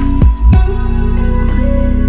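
Background music: a few sharp struck notes in the first half second, then held notes.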